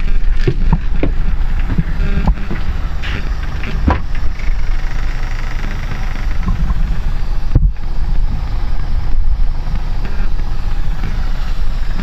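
Scania bus diesel engine idling at about 500 rpm, a steady low rumble heard inside the bus. A few sharp knocks and clicks sound over it, mostly in the first few seconds.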